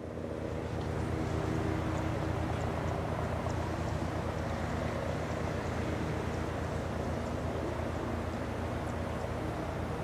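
Agusta A109E Power helicopter in flight at a distance: its four-blade main rotor gives a steady, rapid low thudding over the whine of its turbines, fading in over the first second.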